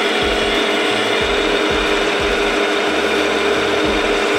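Milling machine running at a steady pitch, its 0.5 mm radius end mill cutting an oil groove along a lathe carriage saddle.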